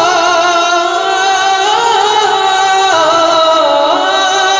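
A man singing a naat solo through a microphone and loudspeakers. He holds long, ornamented notes on drawn-out syllables, and the line steps down in pitch about three and four seconds in.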